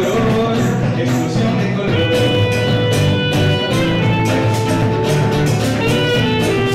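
Small acoustic band playing: a saxophone holds long notes over a strummed nylon-string guitar and regular hand-percussion hits.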